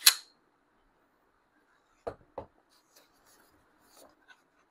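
Metallic clicks from a steel-framed Canik SFX Rival-S pistol being handled: a sharp click at the start as the slide is worked, then two more clicks about a third of a second apart about two seconds in, and faint ticks near the end.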